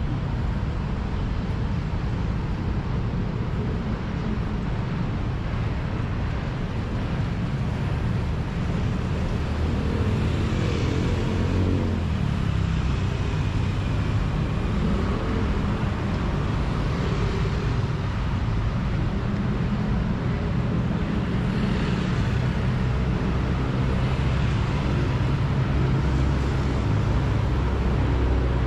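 City road traffic: a steady low rumble of engines and tyres, with several vehicles passing close by.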